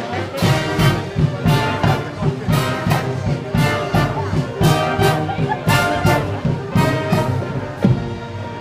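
Street brass band playing: trumpets and trombones over a steady beat of low brass notes and drum strokes.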